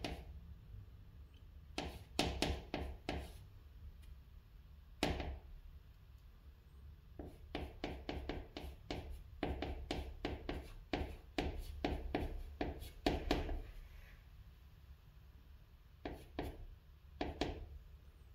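A chalk stick writing on a chalkboard: quick clusters of short taps and scratches as each character's strokes are drawn, a dense run in the middle, with pauses between characters.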